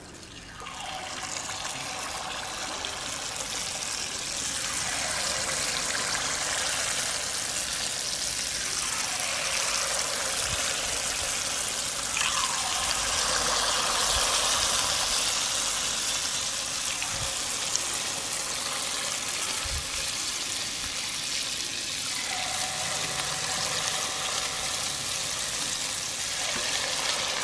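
Unniyappam batter sizzling as it deep-fries in hot oil in the wells of a cast-iron unniyappam pan. The sizzle rises within the first second as batter hits the oil, then holds steady and dense.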